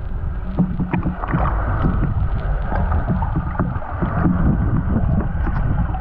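Water splashing and gurgling as someone swims, heard muffled through a waterproof action camera, with many small knocks and bubbling sounds.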